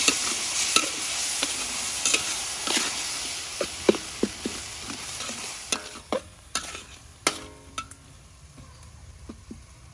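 Metal spatula scraping and knocking against a steel wok as minced pork stir-fries with a sizzle. The sizzle fades away over the last few seconds while the scattered spatula knocks go on.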